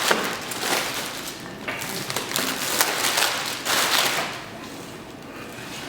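Plastic shrink wrap being cut and pulled off a cardboard box: several crinkling, tearing swishes with small knocks, quieter in the last second or two.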